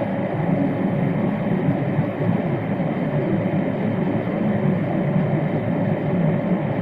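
Steady cabin noise of a Boeing 787-8 climbing after takeoff: the drone of its GEnx-1B turbofan engines and the rush of airflow, heard from inside the cabin.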